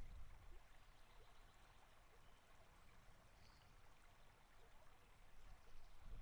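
Faint forest ambience: a soft, even hiss with a few tiny faint chirps. A louder low rumble dies away at the start and swells back in near the end.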